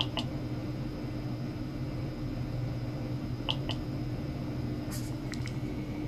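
Steady electrical hum from bench electronic test equipment, with a faint high whine above it and a few short ticks coming in pairs, about 3.5 s apart.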